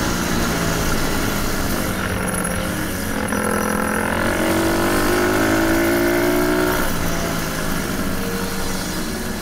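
Enduro dirt bike engine running while ridden; its pitch climbs for a few seconds, then drops about seven seconds in.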